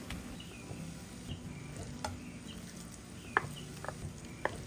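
Wooden spoon scraping mashed pumpkin off a plate into a saucepan of vegetable mince, with a few sharp taps of the spoon against the plate and pan rim in the second half, over a soft sizzle from the pan.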